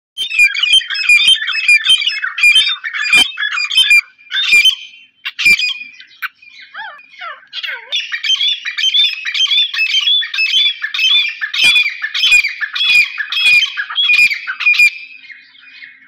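Caged grey francolins (tetar) calling loudly: a fast run of repeated shrill notes, breaking off about four seconds in into scattered calls and a few falling notes, then resuming in the same rapid rhythm before fading near the end.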